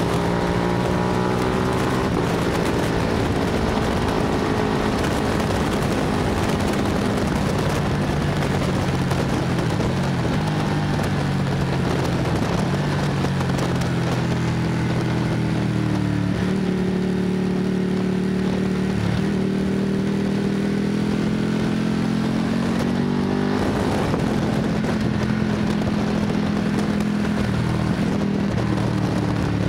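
Sportbike engine running hard on a racetrack, its revs climbing and dropping several times through the lap, with wind rushing over the microphone.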